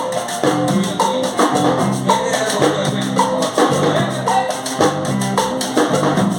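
Latin dance music with percussion on a steady beat of about two strokes a second, played loud in a sound-system test.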